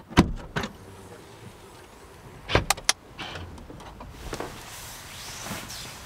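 Sharp clicks and knocks of car door hardware being worked: one just after the start, another about half a second in, and a quick run of three about two and a half seconds in, followed by a faint hiss.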